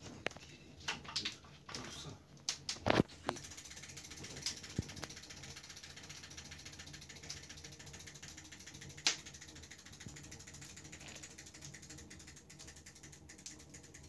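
Kittens' paws scampering and knocking on a wooden floor, with several sharp knocks in the first three seconds and one more about nine seconds in, over a steady fast crackle of fine ticks.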